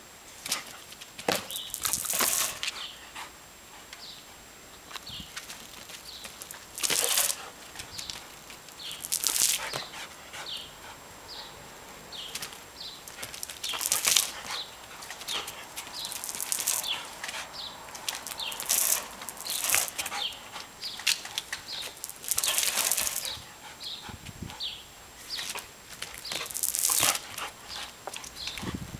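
Bursts of sprayed water hissing as they are aimed at a leaping dog, each lasting about a second and coming every two to five seconds, with quieter spells between.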